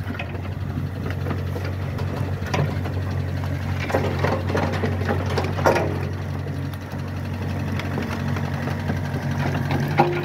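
Takeuchi TB145 mini excavator's diesel engine idling steadily, with a few sharp clicks or knocks over the top.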